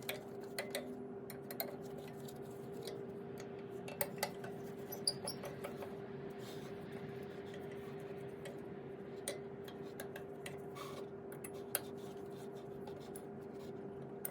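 Scattered light metallic clicks, taps and small scrapes as the knife is worked loose in the cutterhead of a Wen two-blade thickness planer. A steady low hum runs underneath.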